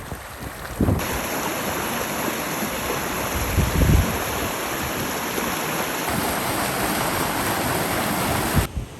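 Rushing water of a hillside stream, a steady dense rush with low wind buffeting on the microphone around the middle. The sound changes abruptly about a second in, again around six seconds and drops off sharply near the end.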